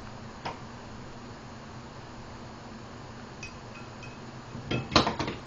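A cat pawing at its white ceramic water dish, the dish clinking and knocking on the wooden floor: one tap about half a second in, a few faint clinks around three and a half seconds, then a cluster of louder knocks near the end.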